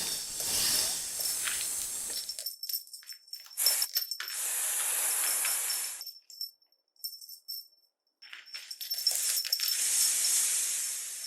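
Snake sound effect: repeated hissing, broken by runs of rapid rattling clicks. A long hiss comes a few seconds in, then a pause of about two seconds, then more clicking and hissing.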